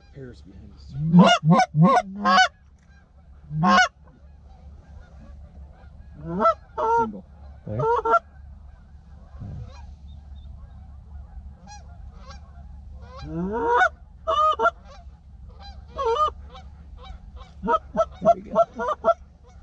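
Canada goose calls blown by hunters: short honks and clucks that start low and rise, in quick runs of two to six notes with pauses between the runs.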